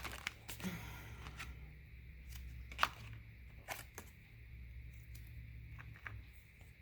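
Tarot cards being handled: a brief rustle near the start, then scattered light clicks and taps as cards are moved, over a steady low hum.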